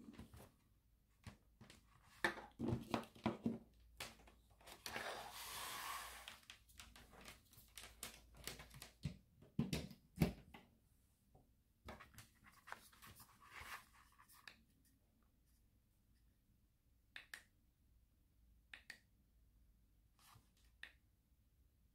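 Hand-handling noise of an LED light strip's plastic cables, connectors and packaging: irregular rustling, light knocks and clicks, with a longer patch of rustling about five seconds in and a sharper knock about ten seconds in. Near the end, only a few single clicks a second or two apart.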